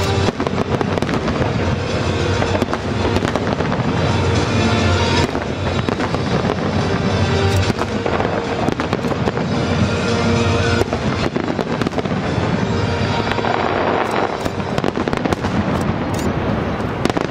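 Aerial firework shells bursting in a rapid, continuous barrage, a dense finale volley of reports.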